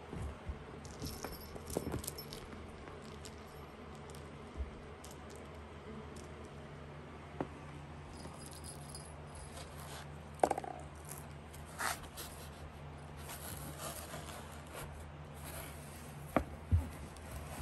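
Small cat toys rattling and jingling as a kitten bats them about, with scattered light clicks and scrapes, the loudest about two-thirds of the way in and near the end. A steady low hum runs underneath.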